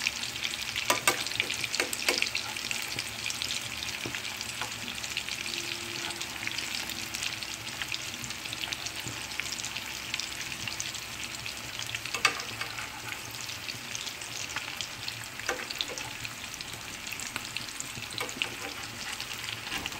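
Eggplant frying in oil in a pan: a steady sizzling crackle, with a few sharp clicks scattered through it.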